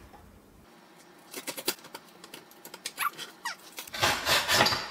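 A hand-held tile scoring cutter worked across a ceramic tile: a run of small clicks and two short squeaks, then a loud scraping stroke about four seconds in. It is pressed down too hard, so that, as the user judges, it cuts straight into the tile rather than just scoring it.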